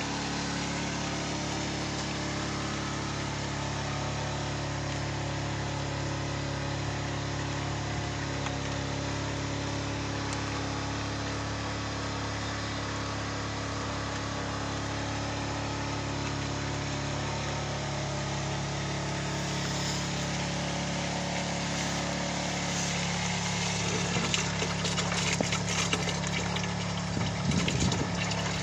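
A small water pump running with a steady hum; in the last few seconds, water from a hose splashes and gurgles into large plastic water bottles as they fill.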